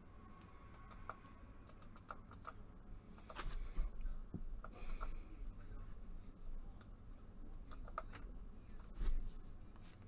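Typing on a computer keyboard: scattered key clicks, sparse at first and busier from about three seconds in.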